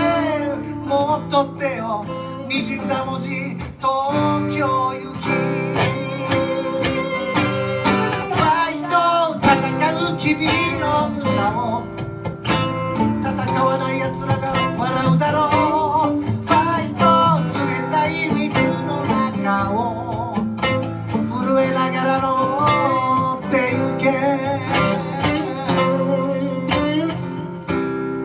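Acoustic guitar strummed and electric guitar played together in a live song, steady and continuous.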